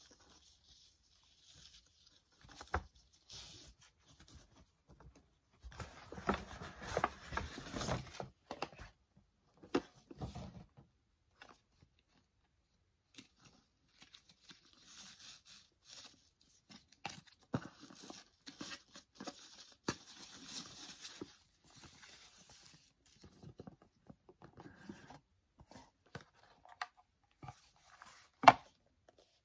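Stiff paper packaging and ribbon being handled: a paper shopping bag and gift box rustling, crinkling and scraping in irregular bursts, with small taps and one sharp knock near the end.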